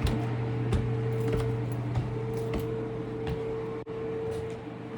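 Steady machine hum holding two constant tones, with scattered light clicks and taps over it and a brief dropout about four seconds in.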